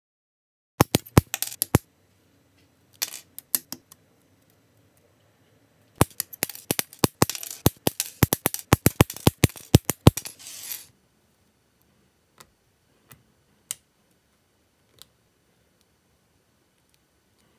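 Sharp plastic clicks in quick clusters as hobby nippers cut clear red parts off a plastic model-kit runner, then a few single clicks as the small plastic parts are handled.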